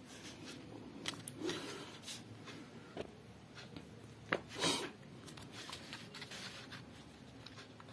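Sheets of paper being handled and shifted over one another: soft rustles and light taps, the loudest a short rustle about four and a half seconds in.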